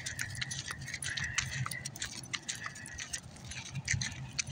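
Footsteps of a person and a leashed dog on a paved road: irregular sharp clicks and scuffs, over the low rumble of a handheld phone being carried.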